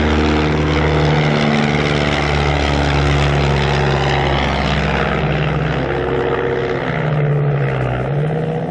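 Piston engine of a vintage propeller aircraft running steadily during a flying display, its note shifting in pitch a few times near the end.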